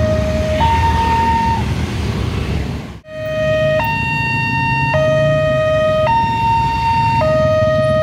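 Railway level-crossing warning alarm on a new Wantech crossing gate, sounding a two-tone alternating signal, high and low tones swapping about once a second, over the running engines of passing motorcycles and cars. The sound breaks off for a moment about three seconds in, then the alarm carries on, clearer.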